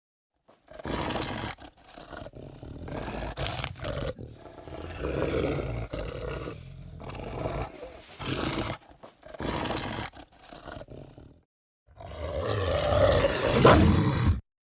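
Film werewolf sound effects: a string of growls and roars broken by short silent gaps, ending with the loudest, longest roar about twelve seconds in.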